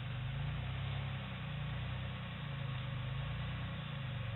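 Suzuki Samurai's engine running at low revs as it crawls through a deep rut, its pitch rising and falling gently every second or so with the throttle.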